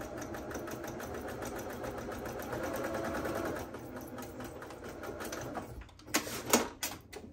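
Electric domestic sewing machine stitching a seam through cotton fabric and interfacing. The needle's rapid, even strokes run for about five and a half seconds, then the machine stops. Two sharp clicks follow about six seconds in.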